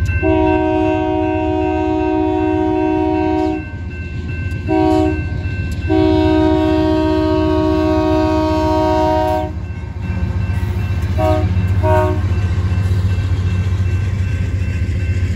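Union Pacific locomotive air horn sounding a chord: a long blast, a short one, another long blast, then two brief toots, as used when approaching a grade crossing. Under it are the steady rumble of the passing locomotive and train cars and the ringing of the crossing bell.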